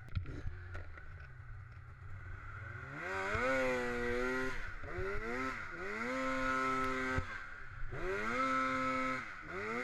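Snowmobile's two-stroke engine running low with a few clicks at first, then revved hard three times from about three seconds in. Each time the pitch climbs quickly, holds high for a second or so, then drops back. It is climbing again at the very end.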